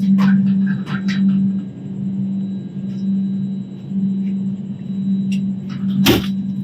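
Steady low hum and rumble inside a moving Indian Railways AC coach, with a few light clicks in the first second and one sharp knock about six seconds in.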